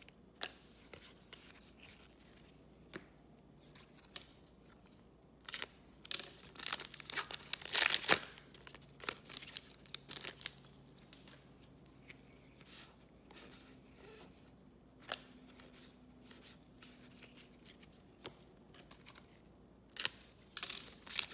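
Trading cards and a foil card-pack wrapper rustling, crinkling and tearing in gloved hands, in short irregular bursts. The loudest crinkling comes about six to eight seconds in, and the pack is torn open near the end.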